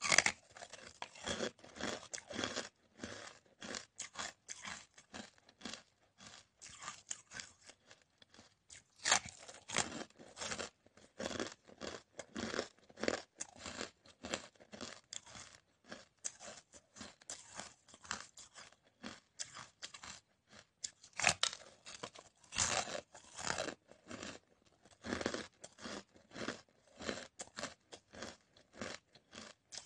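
Hard, crunchy coloured ice being bitten and chewed: a continuous, irregular run of crunches and cracks, with a few louder bites near the start, about nine seconds in, and around twenty-two seconds.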